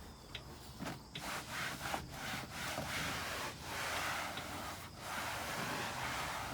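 A cloth wiping a surface with spray cleaner, rubbed back and forth in a run of uneven strokes to scrub off dirt.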